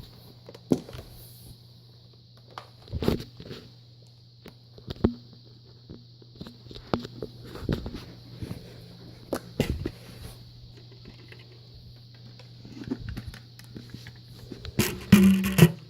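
Scattered light clicks and knocks of things being handled, with a louder clatter near the end, over a faint steady low hum.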